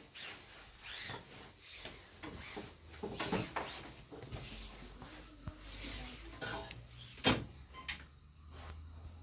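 Rustling and light knocking of cloth and objects being handled, with one sharp knock about seven seconds in.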